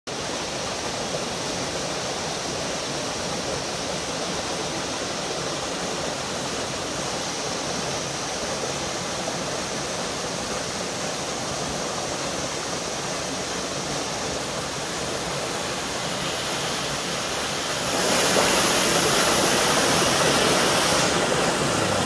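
Small waterfall in a rocky mountain stream, water pouring and splashing over boulders in a steady rush that grows louder about eighteen seconds in.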